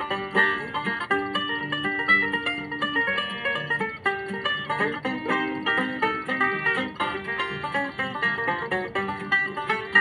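Instrumental break of a bluegrass song: a quick, steadily picked banjo melody over guitar, with no singing.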